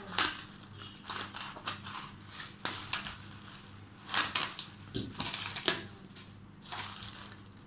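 Styrofoam-padded packaging being pulled apart by hand: irregular crunching and rustling, with louder cracks about four and five and a half seconds in, over a faint steady hum.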